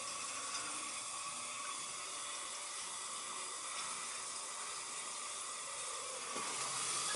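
Hot-water heating system running: a steady, even hiss of water moving through the circulator pump and piping, getting slightly louder near the end. The circulator is running without the noise it was making before the repiping, and seems quiet.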